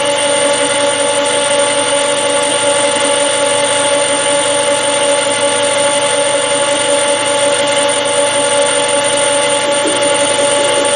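Metal lathe running at about 320 rpm with the lead screw power feed engaged, a steady whine of several pitches, as the tool takes a light, shallow cut along an aluminium bar.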